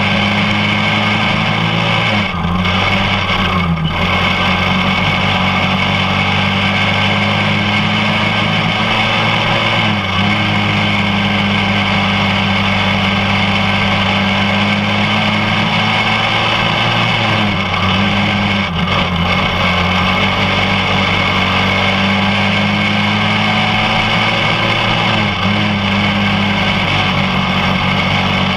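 Quarter midget race car engine running at steady high revs at full race speed, heard from on board with wind rushing past, its pitch dipping briefly every seven or eight seconds.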